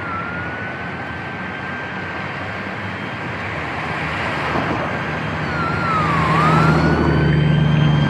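City traffic with distant emergency-vehicle sirens: a steady rush of traffic and engine rumble that grows louder near the end, under siren tones that mostly hold one pitch. One siren dips and climbs back about six seconds in, and a second, higher siren joins about three seconds in.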